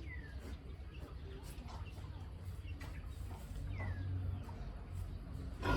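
Faint animal calls: two short chirps falling in pitch, over a low steady rumble. A sudden loud knock-like sound comes near the end.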